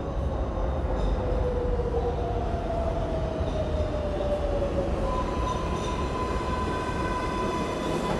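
New York subway train of R142-series cars pulling into an underground station and slowing: a steady low rumble of wheels on rail, with a motor whine that slides down in pitch as it slows. A steady high tone joins about five seconds in.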